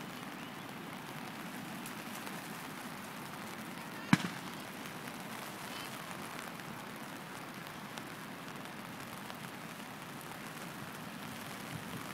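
Steady rain falling, an even hiss, with one sharp click or knock about four seconds in.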